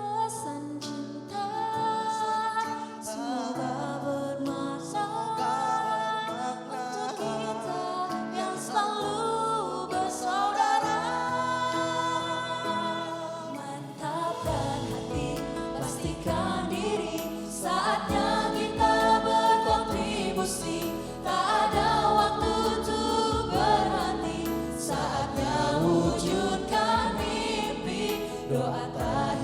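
A vocal group singing a song with choir-like harmonies over musical accompaniment. Deep bass and a fuller backing come in about halfway through.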